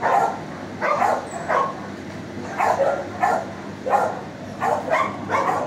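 Shelter dogs barking in their kennels, short barks coming over and over, about one every half second to second.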